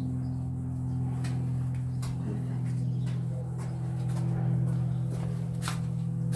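Background music of held, droning chords that change about halfway through, with a few faint clicks and rustles.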